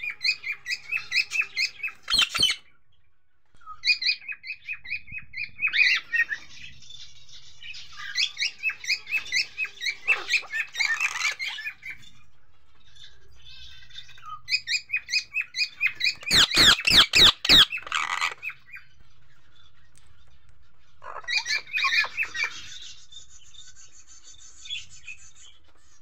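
Indian ringneck parakeets calling in several bouts of rapid, short, high chattering notes, with pauses between bouts. About two-thirds of the way through comes a quick run of sharp clatters, the loudest sound here.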